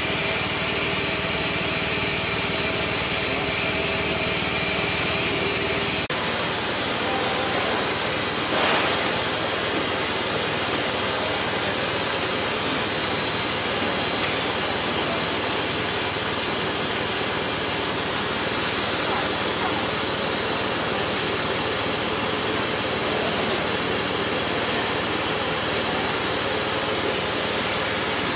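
CKPE-1200 bubble film (bubble wrap) making machine running: a steady, continuous machine noise, with a thin high whine joining in about six seconds in.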